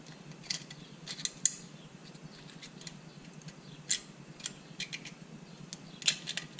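Small sharp metal clicks and light scraping of a pick working a snap ring out of its groove in a manual locking hub. The clicks come scattered and irregular, the loudest about a second and a half in and again about four seconds in.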